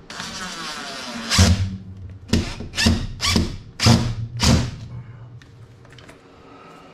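Power drill driving a screw into the wall: a steady run of about a second and a half, then five short bursts on the trigger as the screw goes home.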